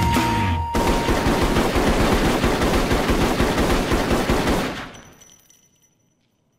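Music cuts off abruptly, and a long burst of rapid automatic gunfire follows for about four seconds. The gunfire dies away to silence near the end.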